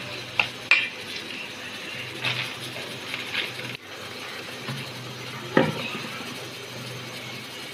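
A handful of light clinks and taps of kitchen utensils, the loudest about a second in and again past the middle, over a steady low hum.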